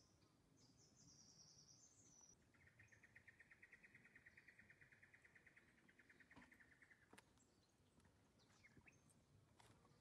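Faint outdoor wildlife sounds, close to silence: a few short high chirps in the first two seconds, then a rapid pulsing trill from an insect or bird lasting about four seconds. A few faint clicks follow near the end.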